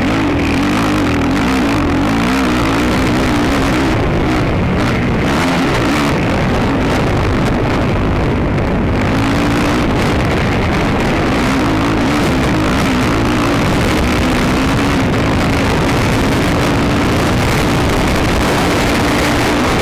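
ATV engine running hard under load, its pitch rising and falling as the throttle changes.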